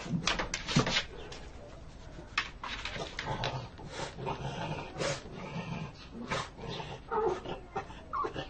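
Pug barking in short, repeated yaps while pawing and scratching at a wooden door, demanding to be let in.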